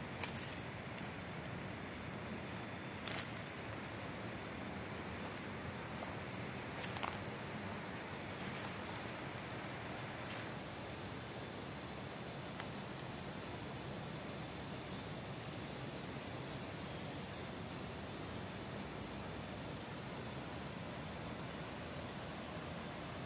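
Steady high-pitched drone of insects over a constant hiss of tropical garden ambience, with a few faint clicks in the first seven seconds.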